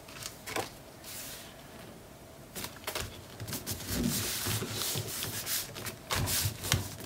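Hands pressing and rubbing over sheets of cardstock: a few light clicks at first, then, from about halfway in, a busier run of paper rubbing and rustling with soft knocks against the table.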